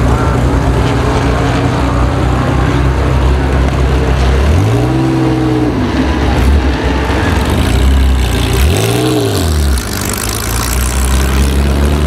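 Vintage race car engine idling with a rough, loud note, revved twice. The first blip comes about four and a half seconds in, rising, holding for about a second and falling back. A shorter blip follows about three seconds later.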